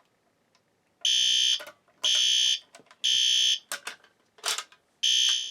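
System Sensor P2RL horn strobe sounding the temporal-three evacuation pattern: three half-second horn blasts a second apart, a pause of about a second and a half, then the next round starting near the end. A few faint clicks and a short rustle fall in the pause.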